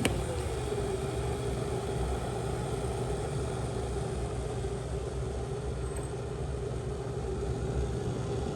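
Offacy gooseneck electric kettle with a stainless steel inner heating water: a steady low rumble with a faint steady tone over it.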